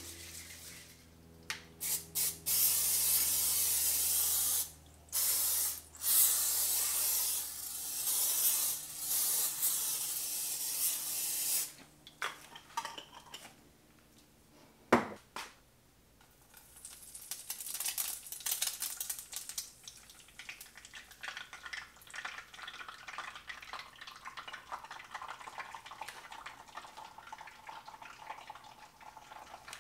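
PAM cooking spray hissing from its aerosol can onto a frying pan in several long bursts, stopping after about twelve seconds. A sharp knock follows a few seconds later, then egg white sizzling quietly in the hot pan, fading slowly.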